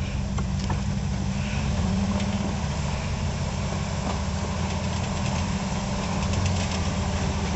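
A lifted Jeep's engine running steadily at low revs while the Jeep crawls slowly over boulders.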